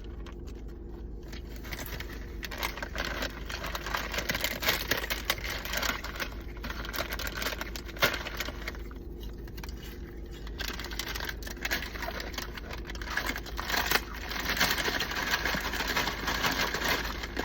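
Crackly rustling and crunching from a crinkly snack packet and dry fried ramen snack being handled and eaten, with a few louder crackles.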